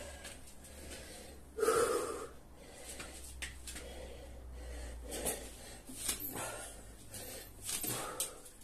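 A man breathing hard from exertion, with a sharp, forceful exhale about every second and a half to two seconds, the kind that comes with each kettlebell swing. The loudest breath is about two seconds in.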